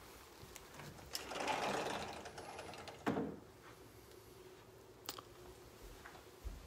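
Sliding glass patio door rolling along its track for about two seconds, then shutting against the frame with a sharp knock, followed by a light click a couple of seconds later.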